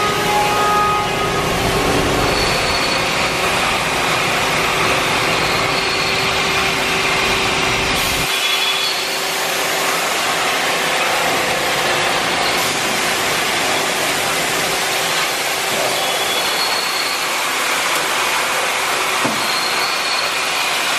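DMC DL8T CNC turning lathe running under power, with its turret moving: a steady machine noise with a held tone. A deep rumble under it cuts out about eight seconds in.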